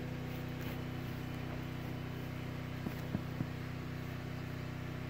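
Steady low mechanical hum, with a few faint clicks about three seconds in.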